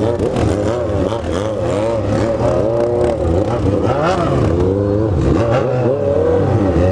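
Several motorcycle engines idling together, with throttles blipped again and again so that the pitch rises and falls in many overlapping revs.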